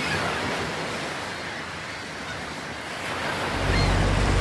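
Steady wash of sea surf with a few faint high chirps; about three and a half seconds in, the low rumble of a boat's engine comes in and grows louder.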